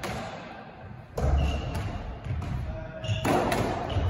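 Squash court between rallies: players' shoes thudding and squeaking on the wooden floor and the ball knocking, echoing around the court, getting busier and louder from about three seconds in.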